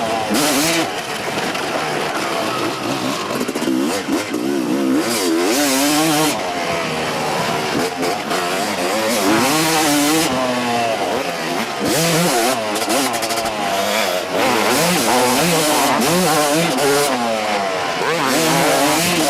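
Kawasaki KX250 single-cylinder two-stroke motocross engine revving up and down over and over, its pitch swinging high and low with the throttle.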